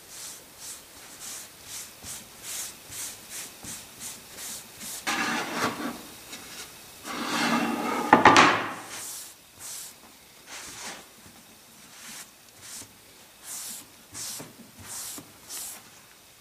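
Cloth rubbed back and forth over a wooden board, wiping in an oil finish: quick swishing strokes about two a second, with a longer, louder stretch of rubbing in the middle, then sparser strokes.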